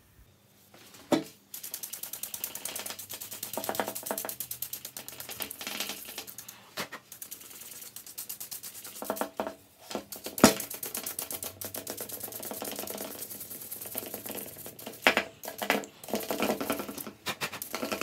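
Stiff plastic hand brush scrubbing tile-cutting dust out of an opened angle grinder's motor and brush area: fast, scratchy back-and-forth strokes, with a few short pauses and a sharp knock about ten seconds in.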